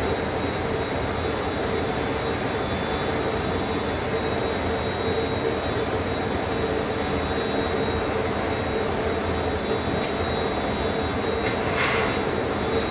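Gas-fired glory hole (glassblowing reheating furnace) burner running with a steady rushing noise and a hum underneath. A short, sharper noise cuts in briefly near the end.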